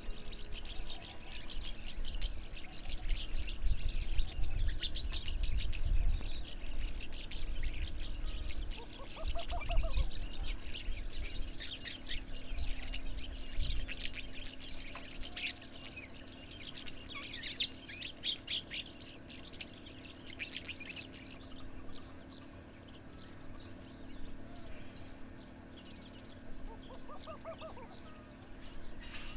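Many small wild birds chirping and twittering quickly and densely, thinning out over the last third. A lower arched call comes twice, and there is a low rumble through the first half.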